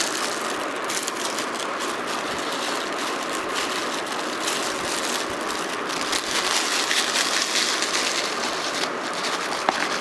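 Plastic bubble-pack packaging rustling and crinkling as it is handled and unwrapped, with one sharp click near the end.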